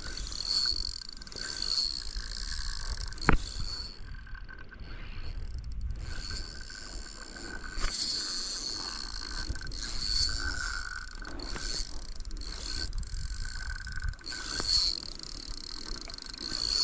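Daiwa Certate 4000 spinning reel being cranked against a hooked fish: a steady mechanical whir of the reel that swells about once a second with each turn of the handle. There is a single sharp click about three seconds in.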